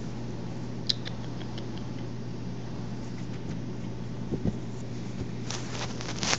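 Maltese puppy's fur and paws rubbing and scratching against the phone's microphone: a sharp click about a second in, two soft thumps past four seconds, and a burst of scratchy rubbing near the end. Under it all runs a steady low hum.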